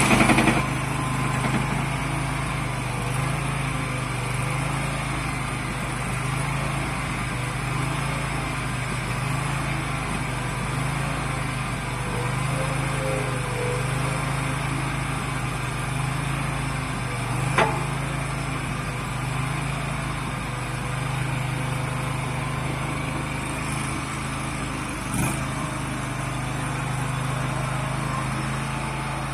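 Tracked mini skid steer loader's engine running steadily, with two brief sharp clicks partway through.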